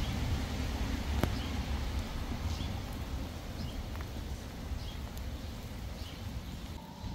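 Low steady rumble of street traffic easing off slightly, with a small bird chirping about once a second and a single sharp click about a second in.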